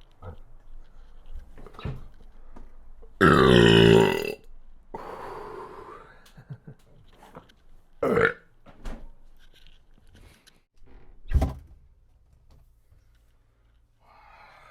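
A man lets out one long, loud, deep burp about three seconds in, lasting about a second, with a weaker tail after it. A few short, sharp sounds follow later.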